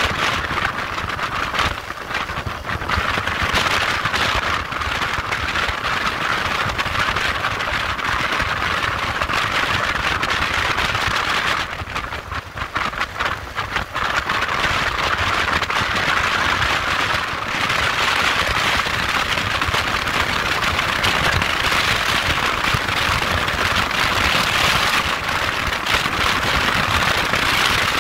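Wind rushing and buffeting over a motorcycle-mounted camera microphone at highway speed, crackling, with a low rumble of engine and road underneath. It eases briefly about halfway through.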